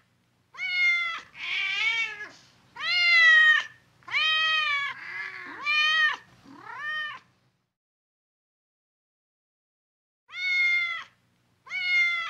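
A domestic cat meowing repeatedly: seven drawn-out meows, each rising and then falling in pitch, a couple of them rough and hoarse. After a pause of about three seconds, two more meows come near the end.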